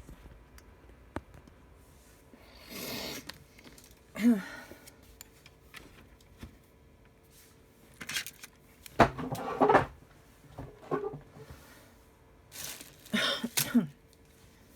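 Scattered knocks, clicks and rattles of small objects being handled and shifted on a work surface while a phone is adjusted in its holder, with the busiest clusters in the second half. Before them come a soft breathy swell and a brief sliding squeak.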